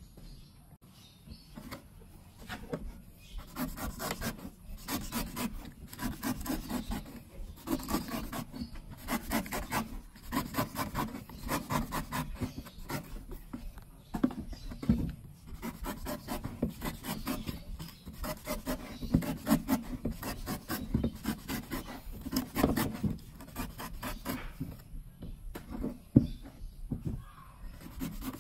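A large knife shaving the husk off a young green coconut in repeated short strokes, with one sharp knock near the end.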